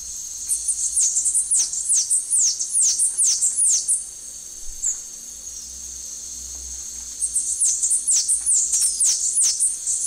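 Bananaquit song: two runs of thin, very high, rapid down-slurred notes, each about three seconds long, with a pause between.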